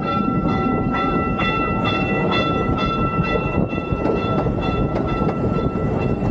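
Amusement-park ride train running along its track: a steady rumble with the wheels clicking over the rail joints about twice a second, and a steady high whine over it.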